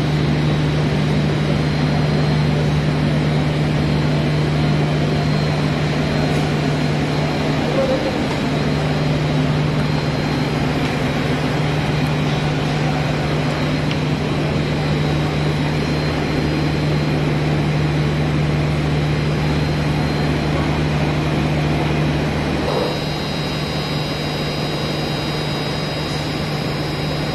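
Steady drone of running ammonia refrigeration plant machinery: a low electric-motor hum with a faint high whine. About 23 seconds in, the deepest part of the hum drops away and a different high whine comes in.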